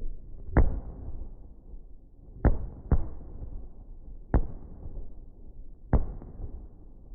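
Fireworks going off: five sharp bangs at uneven intervals, two of them about half a second apart, each trailing off in a short fading rumble.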